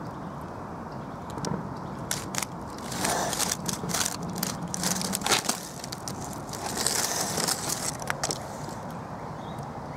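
Dry leaf litter and twigs crackling and crunching, with many sharp snaps between about two and eight seconds in.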